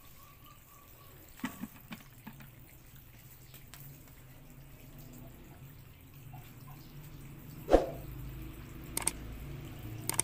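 A thin stream of water running out of a small pipe at the base of a plastic drum and splashing onto concrete, a steady faint trickle. A few knocks sound over it, the loudest about three-quarters of the way through.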